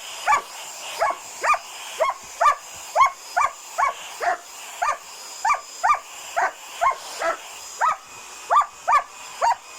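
German shepherd puppy barking at a hair dryer: a steady run of short, high-pitched barks, about two a second. The owner believes he is trying to protect her from the dryer.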